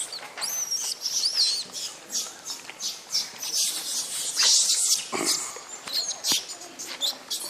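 Monkeys squealing with high, gliding calls in the first second or so while they feed, amid short clicks and knocks, and a loud hissing burst about four and a half seconds in.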